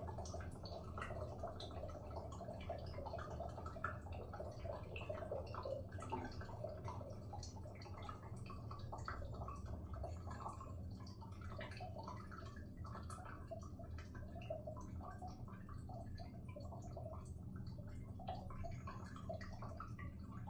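Water dripping without stopping in a small room: many quick, irregular drips over a steady low hum.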